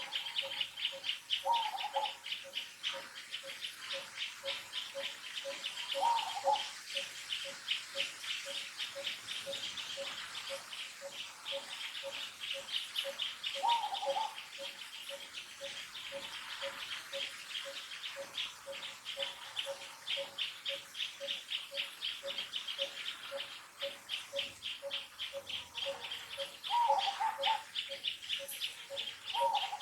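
Outdoor wildlife ambience: insects trilling in fast, continuous pulses, with a short note repeating steadily about twice a second. A few brief falling calls come at scattered moments, the last two near the end.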